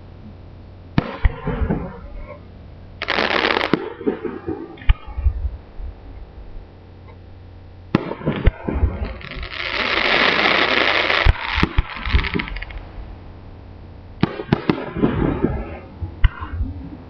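Fireworks display: aerial shells bursting with sharp bangs, in scattered groups of several. A loud hissing stretch lasts about three seconds in the middle.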